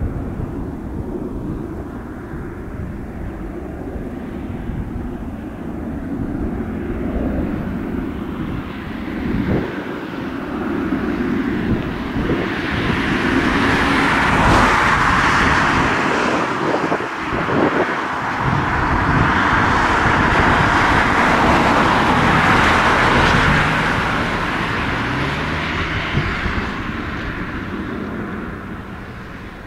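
Four CFM56 turbofan engines of an Airbus A340-300 airliner climbing out overhead after takeoff: a steady low rumble with jet noise that builds to its loudest around the middle and fades toward the end.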